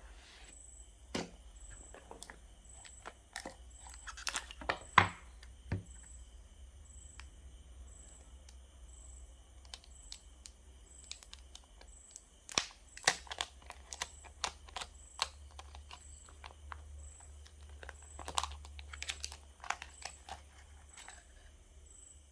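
Hands handling a smartphone's retail box and its packaging: scattered clicks and taps with brief tearing and crinkling, coming in several short clusters.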